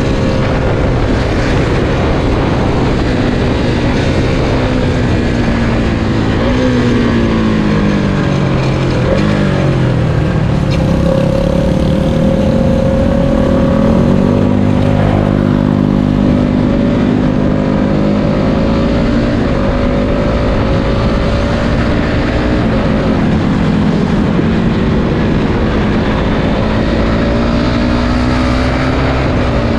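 Suzuki Satria FU 150's single-cylinder four-stroke engine, fuel-injected and fitted with a quickshifter, heard running hard while being ridden. The revs fall steadily about a third of the way in, climb again, then hold fairly steady with small steps in pitch.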